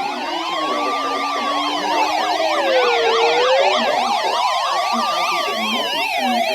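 Several sirens sounding together: a slow wail rising and falling about once every four seconds, layered with fast, rapidly repeating yelp sweeps at higher pitch.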